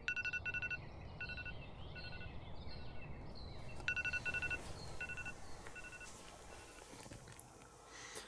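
An electronic alarm beeping in short repeated groups of beeps at one steady pitch. It stops about six seconds in.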